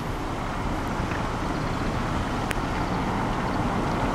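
Steady rushing of a car driving through a torrential downpour: heavy rain beating on the flooded road and the tyres hissing through the water.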